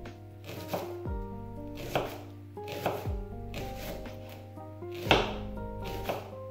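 Knife chopping onions on a cutting board: several irregular sharp strokes, the loudest about five seconds in, over background music with a beat.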